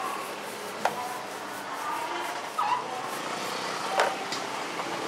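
Steady street background noise, with two sharp clicks: one about a second in, one near the end.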